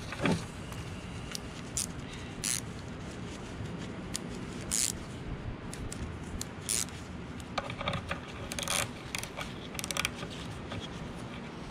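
Scattered light metallic clicks and scrapes of small parts being handled as a spacer and lock nut are fitted onto a roller guide of a wet tile saw's cutting trolley, over a steady low hum.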